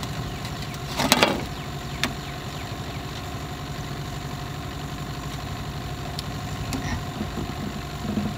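Engine idling steadily with an even low pulsing. There is a short clatter about a second in and a sharp knock near two seconds.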